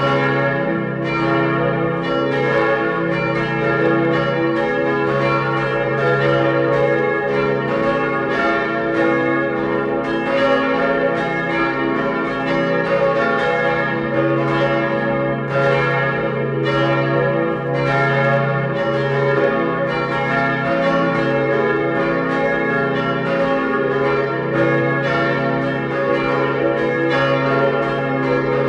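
Computer simulation of a full peal of four church bells, built from synthesized bell tones imitating a peal with nominals A♭, B♭, D♭ and F. Strikes come roughly once a second, each ringing on into the next, so the tones overlap continuously.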